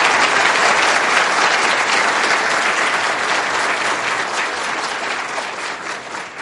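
Audience applauding, the clapping gradually fading out near the end.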